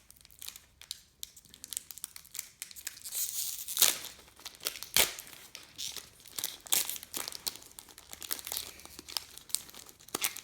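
Trading-card pack wrapper being torn open and crinkled, with irregular sharp crackles and rustling, loudest twice around the middle.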